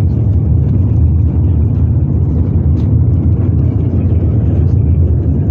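Steady low engine drone of running machinery, unchanging throughout.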